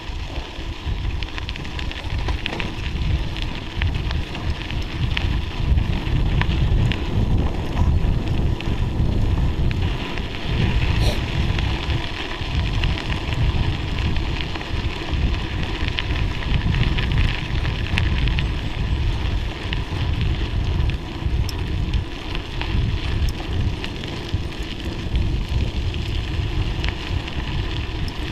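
Wind buffeting the microphone of a mountain bike descending a snow-covered forest road, with a constant crackle of the tyres rolling over snow.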